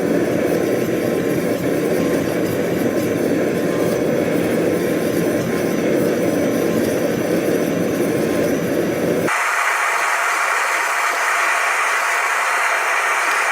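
Steady, loud roaring noise from workshop equipment, with no rhythm. About nine seconds in it switches abruptly to a higher, hissier steady noise.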